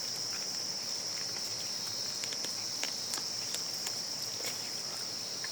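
Steady high-pitched insect chorus, with a few faint scattered clicks.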